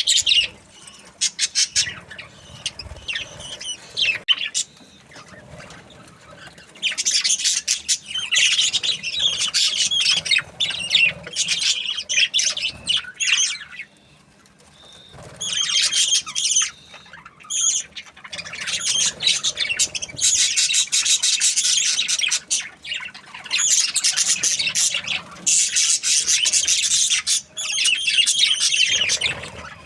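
Budgerigars chirping and chattering in long stretches of dense, rapid warbling, with a brief lull about halfway through.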